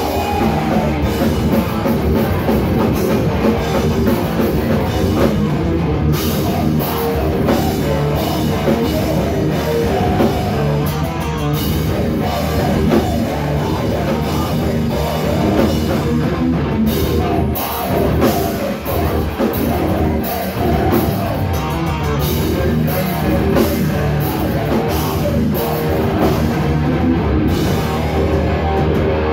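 A heavy rock band playing live at full volume: distorted electric guitars, bass and a pounding drum kit, loud and continuous.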